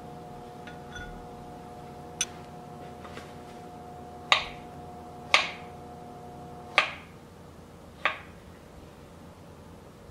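A series of sharp kitchen knocks and clinks from an avocado being halved and cut with a knife on a wooden cutting board, about five of them, each with a short ringing tail. A faint steady hum of two tones runs beneath and stops about two-thirds of the way through.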